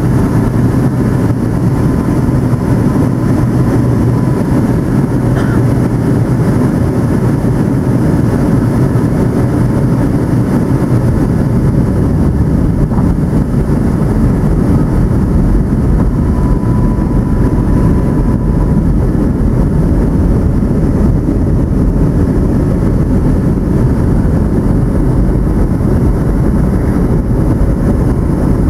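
Steady cabin drone of a Boeing 757-200 in descent: the rumble of its Pratt & Whitney PW2037 engines and the rush of air along the fuselage, heard from a window seat behind the wing.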